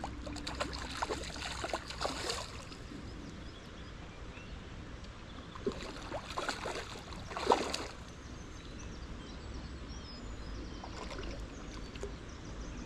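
Hooked trout splashing and thrashing at the water's surface as it is played toward the bank, in two bouts of splashes, the loudest about seven and a half seconds in.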